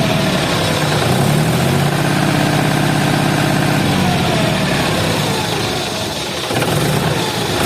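Engine of a heavy machine running steadily, its pitch shifting a little, with a brief drop in level near the end.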